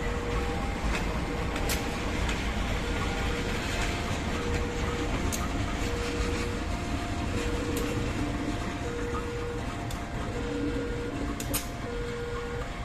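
GE CC 203 diesel-electric locomotive rumbling slowly as it reverses a rake of ballast hopper wagons, with scattered sharp clicks of wheels over rail joints. A level-crossing warning alarm sounds throughout, two alternating tones of about half a second each, signalling that the crossing is closed.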